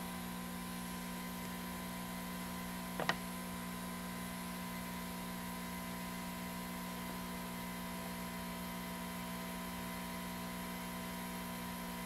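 Steady electrical hum over a faint hiss, with one short light click about three seconds in.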